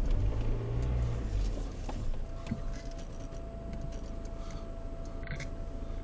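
Car engine running low, heard from inside the cabin as the car rolls slowly over a dirt track, with scattered light ticks. The low rumble is heavier for the first two seconds, then settles, and a faint steady whine comes in about two seconds in.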